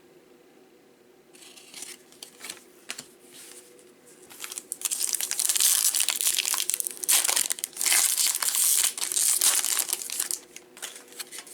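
Wrapper of a Topps Gallery baseball card pack being torn open and crinkled, with scattered crackles at first and a long, loud stretch of crinkling in the middle.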